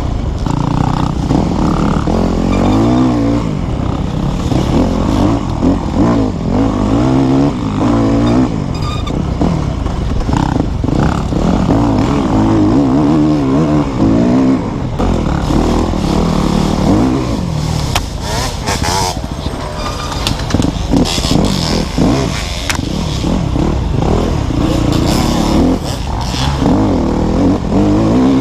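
Yamaha dirt bike engine ridden hard along an off-road race trail, its revs rising and falling continuously through the gears.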